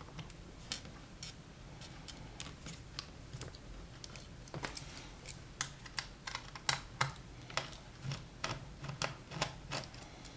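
Light, irregular clicks and taps of laptop plastic parts being handled, a few at first and coming much more often about halfway through.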